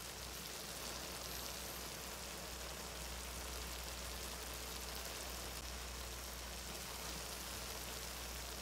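Sotanghon glass-noodle broth simmering in a wok, a steady bubbling hiss with a low hum underneath.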